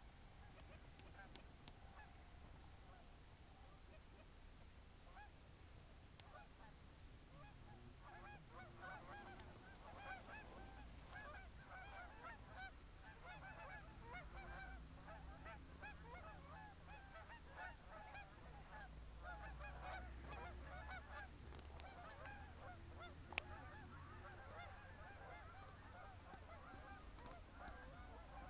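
Flock of snow geese calling in flight: many short, overlapping calls that swell into a dense chorus about eight seconds in. A single sharp click just after the middle.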